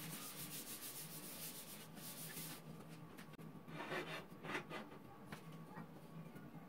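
Paper towel rubbing briskly over the oiled, non-stick surface of a saj griddle, a dry swishing wipe that stops about two and a half seconds in. A few shorter, softer rustles follow near the middle.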